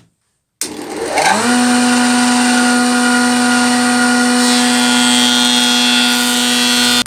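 Combination jointer-planer switched on about half a second in, its motor and cutterhead spinning up with a rising whine over the first second, then running steadily. From about four and a half seconds in, a solid spruce board fed over the jointer adds the higher noise of the knives cutting.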